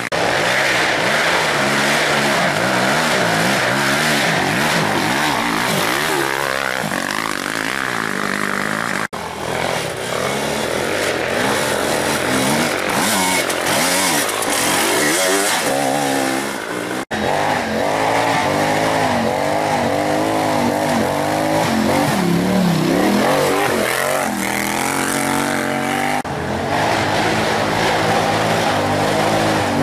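Off-road engines revving hard, rising and falling in pitch, as a sport quad, then an enduro dirt bike, then another quad climb a dirt trail. The sound changes abruptly at sudden cuts about 9 and 17 seconds in.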